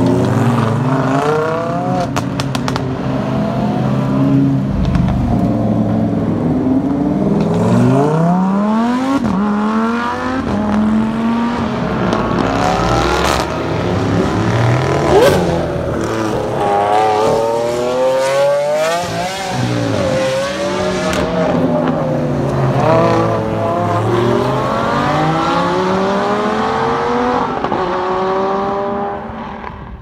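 Lamborghini supercars, among them a Huracán V10 and an Aventador V12, accelerating away one after another. Their engines rev up in repeated rising sweeps with brief dips between gears, and a few sharp cracks come from the exhausts. The sound fades off near the end.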